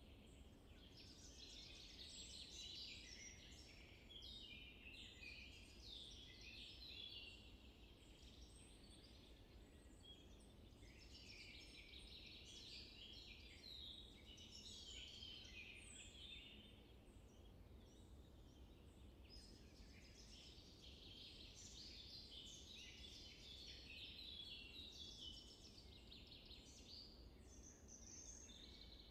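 Faint chorus of wild birds calling and chirping, many short, overlapping notes, over a low steady background hum.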